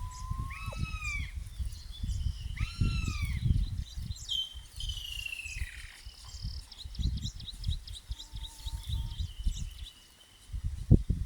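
Several wild birds calling: a held whistled note, two arched, down-curving calls, a falling sweep, then a rapid series of short high notes in the second half. A low rumbling noise runs underneath.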